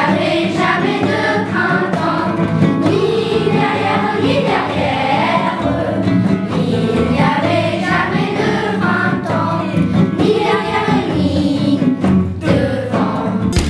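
Music: a group of voices singing together over instrumental accompaniment.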